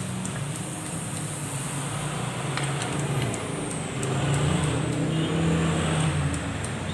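Steady motor-vehicle engine noise, a continuous low hum that grows a little louder about four seconds in, with a few faint light ticks over it.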